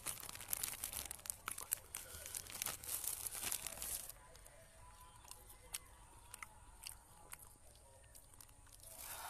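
Thin plastic food bag crinkling and crackling as it is handled. The crinkling is dense for the first four seconds, then thins to occasional small crackles.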